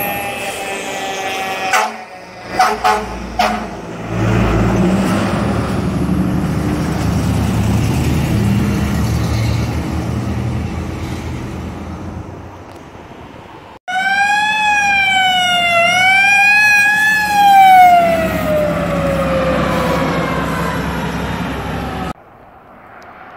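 Fire trucks responding: a siren winding down and about four short, loud horn blasts, then the heavy engine of a fire truck passing close and fading. After a sudden cut, a loud siren rises and falls twice, then slowly winds down in pitch.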